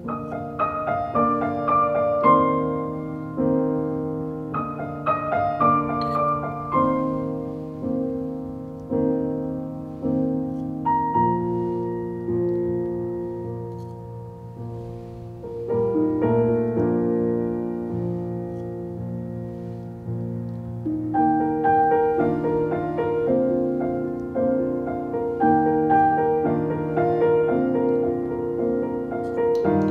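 Background piano music: slow, gentle chords and melody notes, each struck and left to ring.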